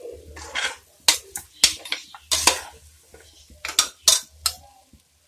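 Steel spoon stirring chicken pieces in an aluminium pressure cooker, knocking and scraping against the pot's sides in a string of sharp clinks.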